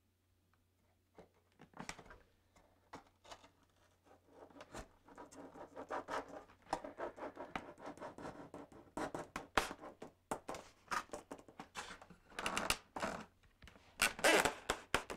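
Hands handling packaging and a foam RC airplane wing: rustling, scratching and small clicks and taps, sparse at first and busier from about five seconds in.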